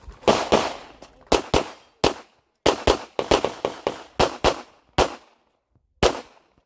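Glock 34 9mm pistol firing a rapid string of about a dozen shots at a practical-shooting stage, several in quick pairs, the last about six seconds in.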